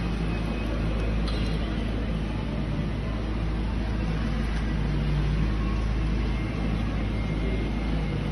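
Linde electric reach trucks driving across a concrete warehouse floor: a steady low hum and rumble with a faint, thin high whine running through it.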